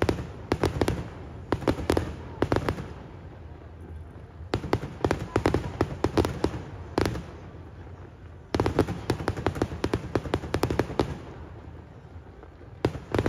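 Fireworks bursting close by: rapid volleys of bangs and crackles in three or four clusters, with short lulls between.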